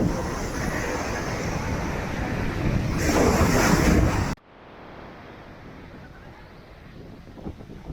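Ocean surf breaking on the beach, with wind buffeting the microphone and a louder surge of wash just before it cuts off abruptly about four seconds in. A much fainter steady background follows.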